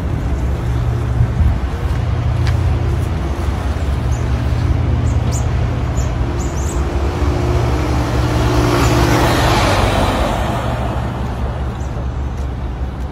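An engine running steadily close by over road traffic noise, with a vehicle passing by that swells and fades about eight to ten seconds in.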